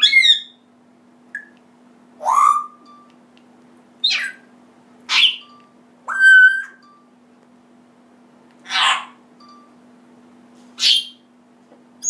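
African grey parrot calling: a series of short squawks about every one to two seconds, with a whistled note of steady pitch about six seconds in.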